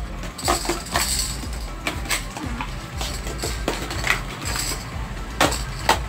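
Small hard plastic toy pieces clicking and clattering against each other and a hard surface, in irregular knocks a second or so apart.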